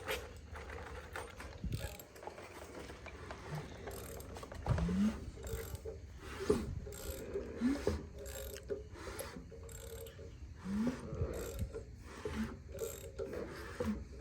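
A ratchet wrench clicking in irregular runs as a freshly assembled engine is turned over by hand, with a few short rising squeaks. The builder is checking for a valve touching a piston.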